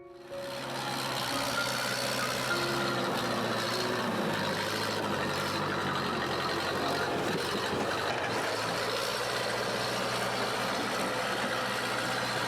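Bulldozer's diesel engine running steadily, cutting in abruptly just after the start.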